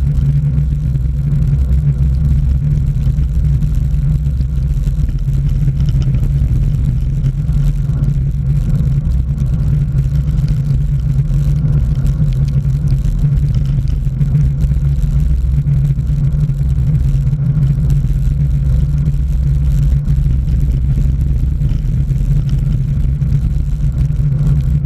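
Wind and tyre noise on a bike-mounted camera during a fast road-bike descent on wet pavement: a loud, steady low rumble.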